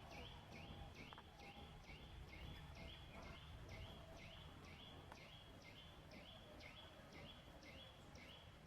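Faint, steady series of bird calls: one short high note that drops and then levels off, repeated about three times a second.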